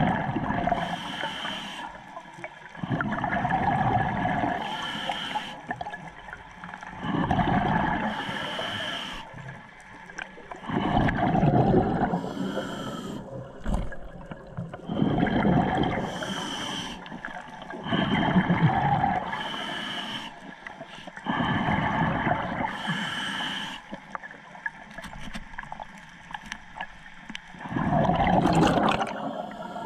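A scuba diver breathing through a regulator underwater: a steady cycle, about every three to four seconds, of a sharp hiss on each inhale and a rush of exhaled bubbles.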